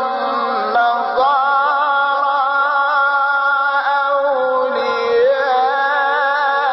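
Male voice chanting Quran recitation in the melodic mujawwad style: a long, ornamented line of held, gently wavering notes with slow melodic turns.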